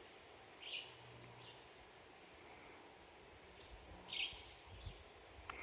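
Faint natural background with two short animal chirps, one under a second in and another about four seconds in, over a faint steady high tone.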